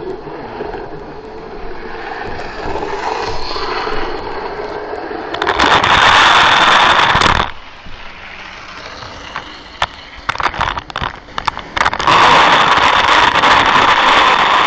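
HO-scale model locomotive running, heard from a camera riding on it: the motor whirring and the wheels running on the rails, swelling loud twice. In the quieter stretch between, a rapid run of sharp clicks and crackles.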